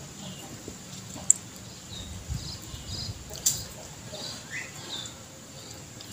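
Small birds chirping in short, scattered high calls, with a few sharp clicks.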